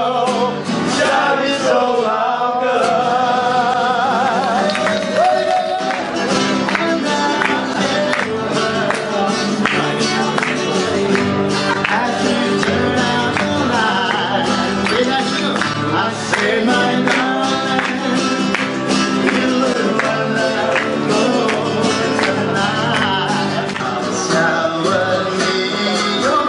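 A song with a man singing over guitar.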